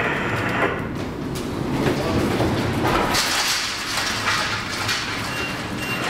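Ship's bridge in a storm, heard from inside: a steady rumble and rattle of the hull and wind. From about three seconds in, a loud hiss builds as the bow takes a wave and sea spray sweeps over the windows.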